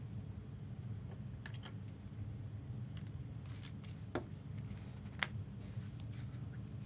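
Trading cards and packs being handled: a few soft clicks and rustles over a steady low hum.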